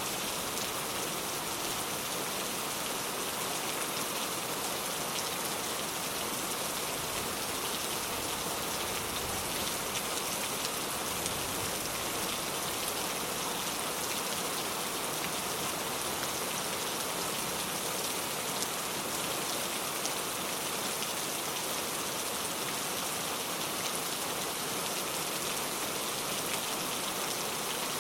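Steady rain falling: an even hiss with a fine patter of individual drops, holding constant throughout.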